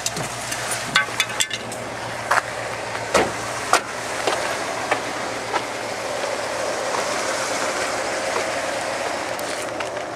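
Car driving slowly over a snow-covered road, heard from inside the car: a steady low engine hum and tyre noise that swells for a few seconds in the middle. A few sharp clicks and knocks come in the first four seconds.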